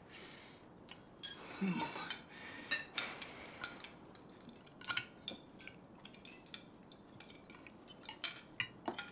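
Knives and forks clinking and scraping on china dinner plates as several people eat, a scattered run of light, irregular clinks.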